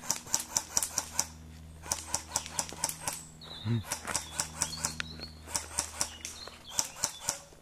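Airsoft gunfire: several bursts of rapid sharp clicking shots, about seven a second.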